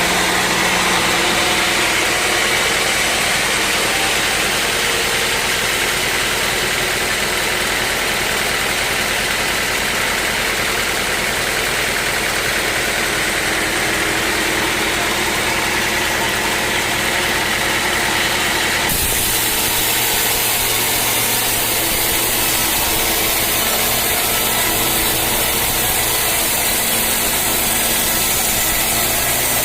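Sawmill machinery engine running steadily with a dense mechanical noise. The sound changes abruptly about two-thirds of the way through, turning hissier.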